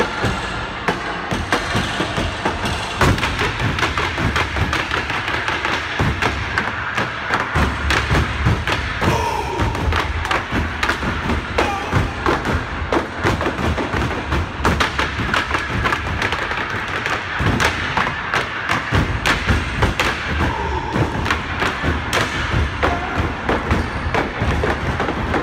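Cane stepping routine: canes tapping and striking the stage floor along with stomping feet in a fast, tight rhythm, over backing music whose heavy bass comes in several seconds in.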